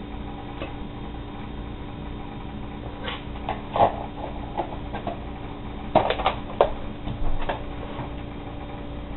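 Scattered light knocks and clicks of kitchen handling at a metal mixing bowl of sliced cabbage, as chopped onion is added, the loudest about four and six seconds in. A steady low hum runs underneath.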